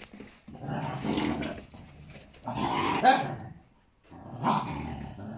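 Mother dog growling and snarling at her puppies in three rough bouts as they crowd her to nurse: a weaning warning that sounds fiercer than it is.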